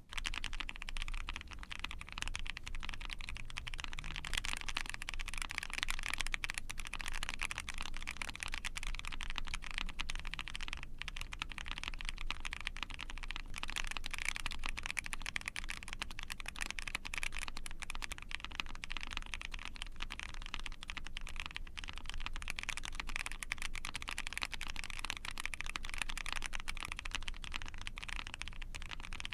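Continuous fast typing on a mechanical keyboard fitted with prototype Invokeys Blueberry Chiffon light tactile switches, hand-lubed and factory-lubed, in an ai03 Vega with a POM plate and GMK keycaps. Dense, even keystroke clatter with no pauses.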